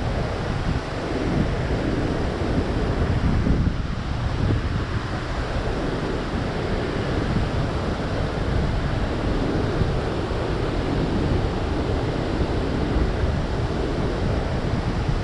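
Steady rush of water pouring through a dam's open spillway gates and churning in the river below, with wind buffeting the microphone.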